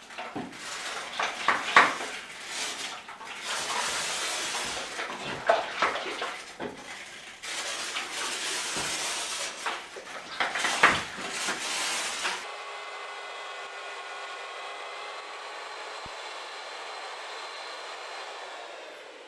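Hand work on a flagstone floor: scraping and scrubbing against the stone, broken by sharp clinks and knocks. About twelve seconds in it stops abruptly and a steady hum with a few held tones takes over.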